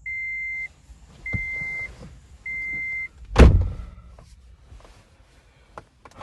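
Toyota Prius's cabin warning chime, three even beeps a little over a second apart, then a car door shutting with a thud about halfway through, after which the beeping stops.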